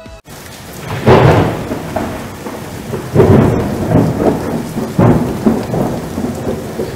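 Thunderstorm sound effect: steady rain with rolls of thunder swelling up about a second in, again around three seconds and near five seconds.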